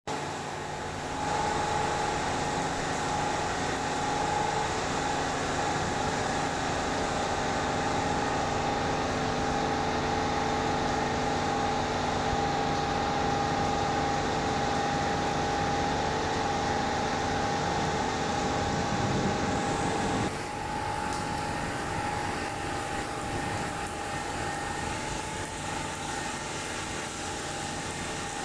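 Steady mechanical hum with a constant whine over a broad hiss. It grows louder about a second in and drops a little about twenty seconds in.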